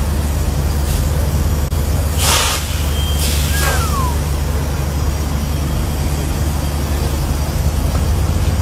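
Semi-truck's diesel engine running with a steady low rumble, with two short bursts of air hiss, one about two seconds in and one about three and a half seconds in.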